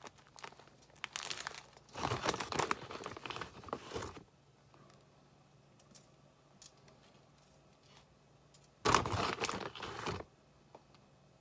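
Plastic bag of shredded cheddar cheese crinkling as a hand grips and works it, in two bouts: a longer one starting about a second in and a shorter one near the end.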